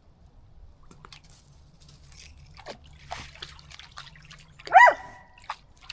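Water splashing and trickling, as of someone stepping or stomping through a puddle, with a short, loud high-pitched cry near the end.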